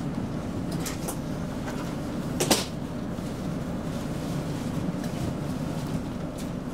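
Steady low rumble inside a slow-moving ABB X10p electric railcar, with a few light clicks and one sharp clunk about two and a half seconds in.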